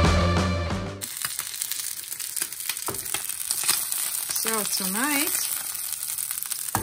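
Trout fillet sizzling and crackling in oil in a frying pan. Rock music cuts off about a second in, and a short hummed voice rising and falling in pitch sounds just past the middle.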